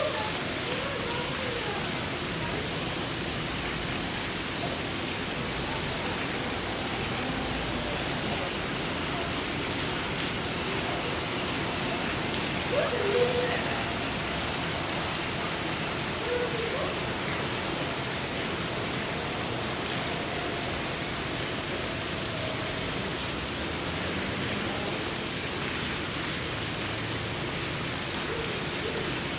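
A steady, even hiss with no rhythm, with faint distant voices now and then.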